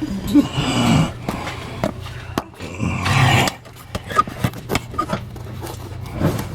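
Irregular scraping and sharp clicks from hands and tools moving about under a pickup truck, over a steady low hum.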